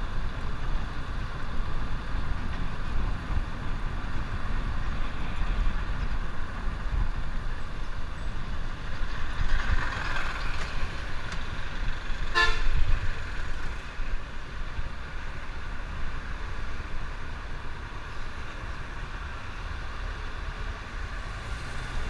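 Wind rushing over the microphone of a camera on a moving motorcycle, with road traffic around. A short vehicle horn toot sounds about halfway through, and the rushing eases a little afterwards as the bike slows.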